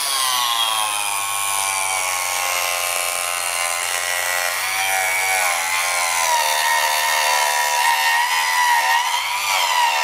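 Harbor Freight Mighty Mite 4-inch mini table saw's small universal brushed motor whining as its carbide-tipped blade rips a thin wooden board. Its pitch drops near the start as the blade bites into the wood, then wavers with the feed: the weak motor bogging under load.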